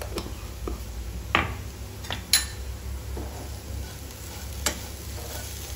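A steel spoon stirring and scraping diced potatoes frying in a little oil in a nonstick pan, with the potatoes sizzling. Three sharp clicks of the spoon against the pan stand out, the loudest a little before the middle, over a steady low hum.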